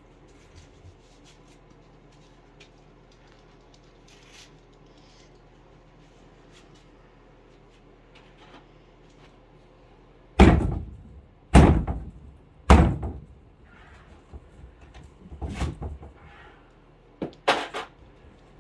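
Faint handling sounds, then three heavy knocks about a second apart, a weaker knock a few seconds later and two quick ones near the end: wooden wall framing being struck and knocked loose during demolition.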